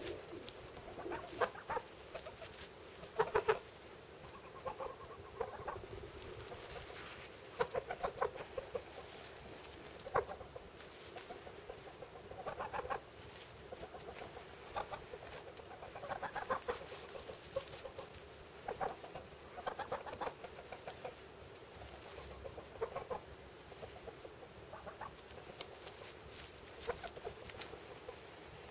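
Domestic white geese giving short, soft calls every second or two, with straw rustling as one works the nest hollow.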